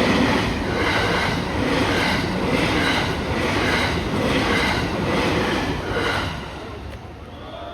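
A train passing over a railway level crossing, its wheels clacking over the rail joints in a regular beat a little over once a second. The sound drops away about six and a half seconds in as the train clears the crossing.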